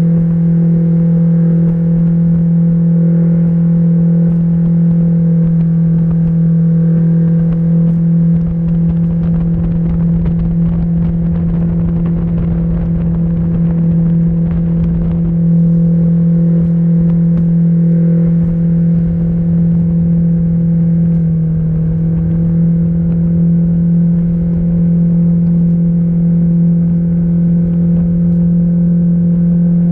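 Mercury 60/40 jet outboard running at steady cruising throttle, about 27 mph, a loud even drone over a low rumble, with a brief dip in pitch about two-thirds through.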